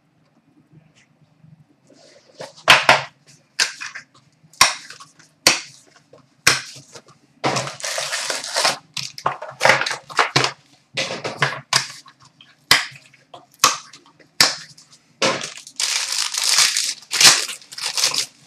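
A trading-card hobby box and its pack wrapping handled and torn open by hand. There are many sharp cardboard and plastic snaps and crinkles, with two longer tearing rustles about a third of the way in and again near the end.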